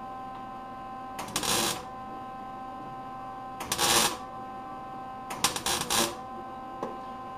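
MIG welder laying three short stitch welds on thin sheet steel, each a burst of arc crackle under a second long, the last broken into several quick tacks. A steady hum runs underneath.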